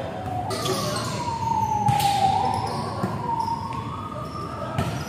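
A siren wailing, one pitch that slides slowly down and then back up, with the sharp smacks of a volleyball being hit twice.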